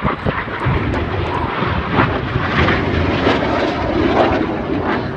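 Red Arrows BAE Hawk T1 jets in flight: the steady rushing roar of their Rolls-Royce Adour turbofan engines, rising and falling a little in loudness.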